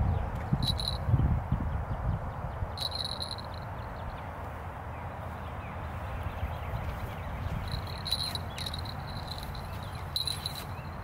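Insects chirping in short, high trills that come and go several times, the last ones running into a thin steady tone near the end, over a steady outdoor hiss. Low rumbling in the first second or two.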